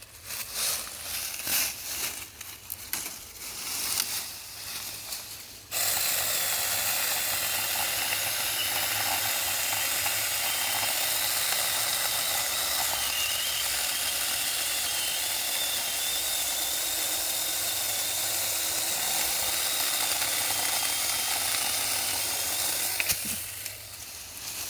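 Saker 6-inch cordless mini chainsaw working in seasoned beech. After a few seconds of short, uneven bursts, the chain cuts steadily through the hard wood for about 17 seconds, then stops with a click near the end.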